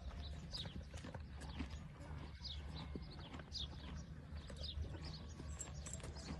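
Horses grazing, with faint hoof steps and clicks over a low rumble, and a high falling chirp about once a second.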